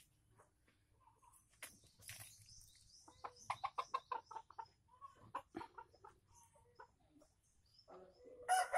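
Red junglefowl rooster giving a quick run of soft, short clucks among faint scattered clicks. Near the end it breaks into a loud crow.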